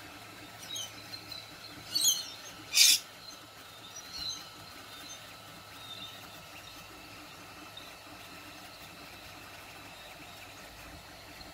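Wild parrots (rainbow lorikeets and galahs) chirping and screeching, with two harsh screeches about two and three seconds in, the second the loudest. Under them runs the steady faint hum of a Sooway SW200 3D printer at work.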